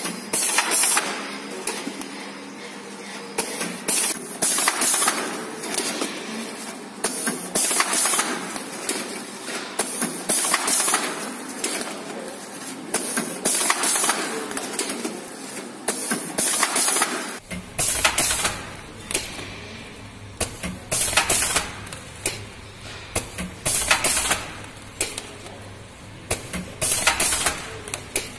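Semiautomatic bread packaging machine cycling repeatedly as bread bags are fed through it: plastic bags crinkling and the closing mechanism clacking every one to two seconds. A low steady hum comes in about two-thirds of the way through.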